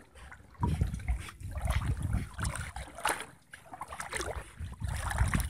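Water sloshing and splashing irregularly as someone wades through shallow water, with wind buffeting the microphone.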